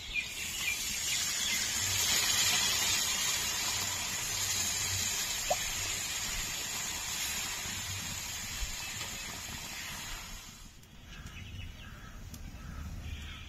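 Water poured into a hot pan of browned, spiced chicken curry, hissing and sizzling as it hits the hot masala, then dying down about ten seconds in.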